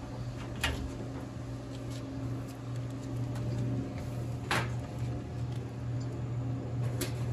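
Cables and their plugs being handled inside an open vending machine: three sharp clicks or knocks, the loudest about halfway through, over a steady low hum.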